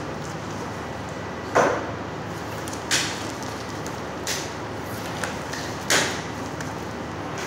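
Butcher's twine being pulled taut around a raw rolled leg of lamb as it is tied into a roast: four sharp swishes about a second and a half apart, the first and last loudest, over a steady hiss.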